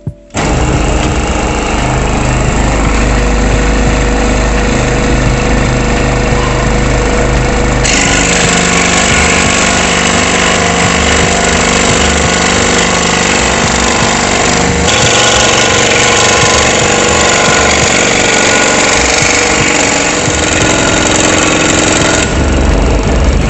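Krisbow scroll saw starting about a third of a second in and running loud and steady, its reciprocating blade cutting a piece of hardwood about 1.5 to 2 cm thick. The sound shifts a few times as the cut goes on.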